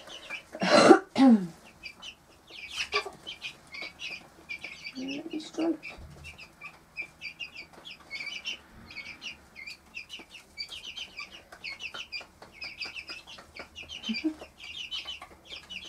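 Four-week-old Cuckoo Marans chicks cheeping continuously in quick, short, high notes, with the mother hen giving a few low clucks. About a second in there is one brief loud sound that falls in pitch.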